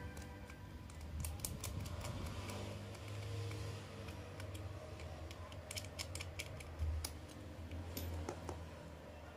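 Small screwdriver turning a screw into a plastic toy figure, with scattered light clicks and plastic handling rattles and a soft thump about seven seconds in.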